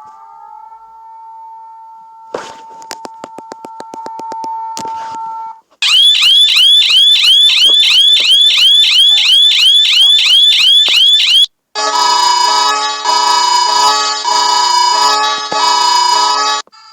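A run of electronic emergency alert alarm tones, one after another. First a steady two-tone hum with a train of clicks, then a loud, rapid series of falling chirps repeating several times a second, then after a short break a pulsing chord of several steady tones that switches on and off.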